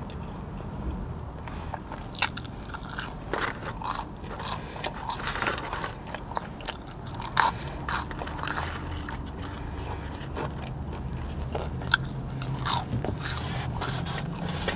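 Close-miked chewing of a Checkers Steakhouse Double burger with crispy onions: irregular wet mouth clicks and soft crunches over a low steady hum.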